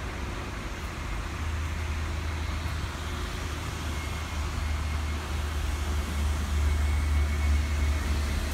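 Road traffic: a steady low rumble with hiss, getting louder in the second half.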